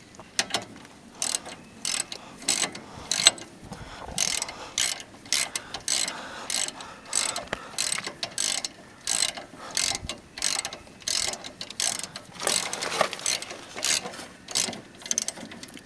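A 3/8-inch ratchet with a 9/16 socket clicking in repeated back-strokes, about two clicks a second, as a brake caliper bolt is run in and snugged up.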